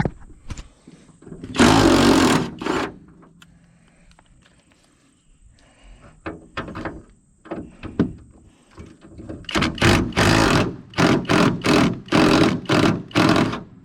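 A wrench working loose the bolts of a truck's hood hinge. There is one cluster of short bursts about two seconds in, then scattered clicks and knocks, then a quick run of short bursts, about two a second, near the end.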